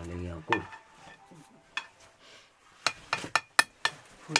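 Metal utensil clinking and knocking against a cooking pot: a handful of sharp separate clinks, coming closer together in the second half.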